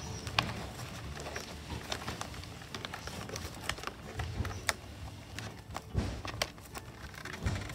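Scattered small clicks and rustles of hands handling an RC plane's servo and speed-controller wires, plugging a new speed controller's lead into the receiver, with a few soft low thuds.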